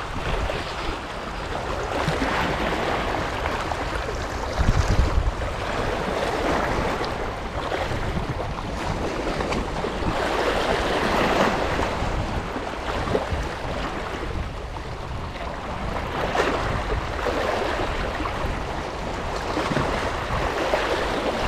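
Sea waves washing and wind noise on the microphone, a steady rushing that swells every few seconds, with a louder low rumble about five seconds in.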